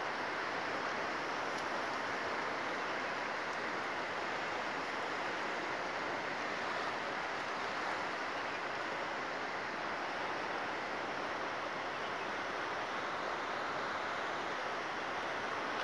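Steady rushing of a fast-flowing river, unchanging throughout.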